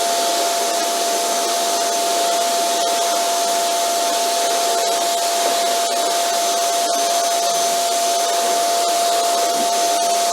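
Vacuum cleaner running steadily: an even rush of air with a constant motor whine on top.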